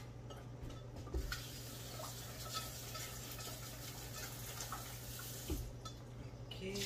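Kitchen faucet running steadily into a steel bowl in the sink as okra is rinsed, with a couple of faint knocks of the bowl.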